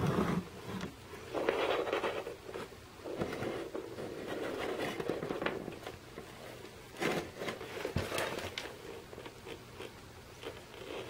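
Handling noise as small plastic toy figures are moved by hand on a wooden floor: soft scraping and rustling, with a few short knocks about seven and eight seconds in.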